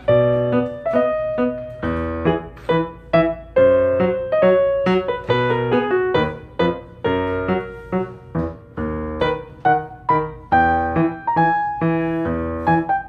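Background piano music: a steady run of struck notes over repeated low bass notes.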